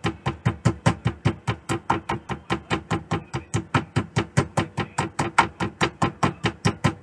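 Meat mallet pounding beef cube steak through plastic wrap on a cutting board, a steady run of quick strikes at about five a second.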